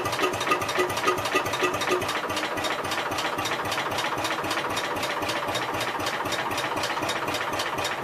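Gravely C10 tractor engine cranking over on its starter with a steady, even rhythm but not firing, which the owner takes for no spark.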